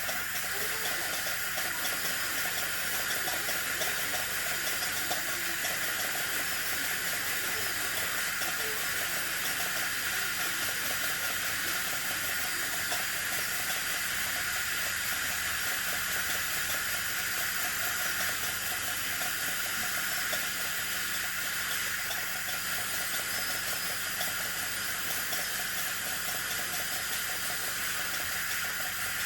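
Steady hiss of a high-speed dental handpiece with its water spray, together with the suction, running without a break while a molar's access cavity is drilled.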